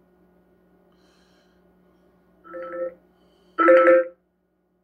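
Two short bursts of a phone ringtone played through a Fisher Bluetooth speaker, each about half a second long and about a second apart, the second one louder.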